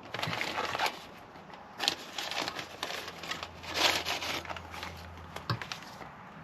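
Packaging rustling and crinkling in several short bursts as a portable cartridge gas stove is unpacked, with a light knock about five and a half seconds in.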